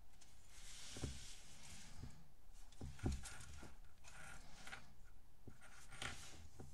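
Plastic Lego Technic car model being handled and turned over on a wooden table: rustling and rubbing with a few soft knocks, the loudest about three seconds in.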